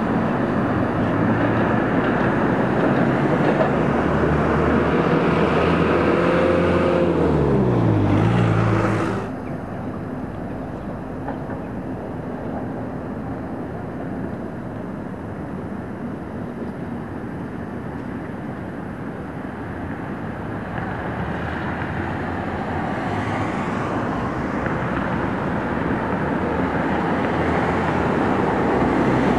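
Street traffic noise: a motor vehicle passes close by about seven seconds in, its engine note falling in pitch as it goes. Near nine seconds the sound drops abruptly to a quieter traffic hum that slowly grows louder again toward the end.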